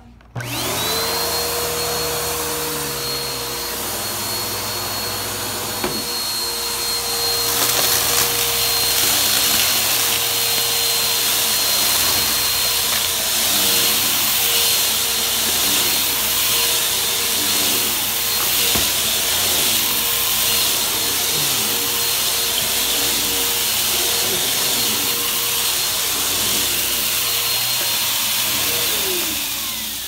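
Bissell PowerForce Helix upright vacuum cleaner switched on, its motor spinning up with a rising whine, then running steadily with a high whine and rushing air while it is pushed over carpet. Near the end the motor winds down as it is switched off.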